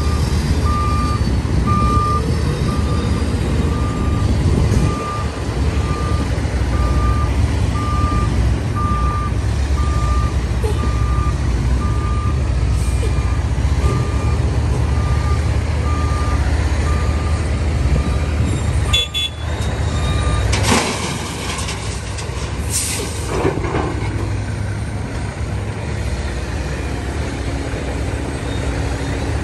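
Heavy diesel vehicle's backup alarm beeping steadily, a little under once a second, over the engine's low running rumble. The beeping stops about twenty seconds in, and two short hisses of air follow.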